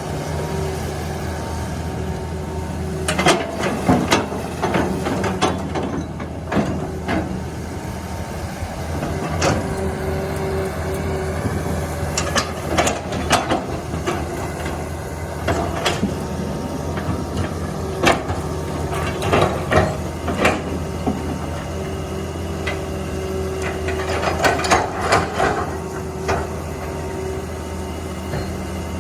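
A heavy machine's engine running steadily, with clusters of sharp knocks and clanks every few seconds.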